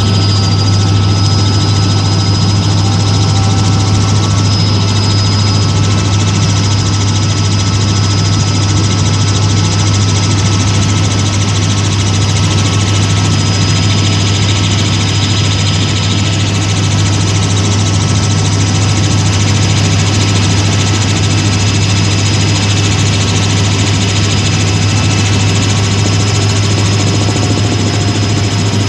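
Helicopter in flight, heard from inside the cabin: a loud, steady drone with a strong low hum and a thin, constant high whine on top.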